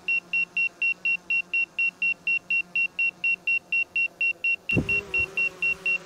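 Drone remote controller sounding a warning alarm: a high, rapid beeping at about five beeps a second, over the faint hum of the hovering drone's propellers. A thump with a brief low rumble about three-quarters of the way through.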